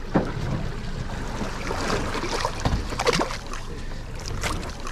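Water splashing as two hooked reef fish, a parrotfish and a redthroat emperor, thrash at the surface while they are hauled up to the boat's side. The splashes come irregularly, with a few louder ones about three seconds in.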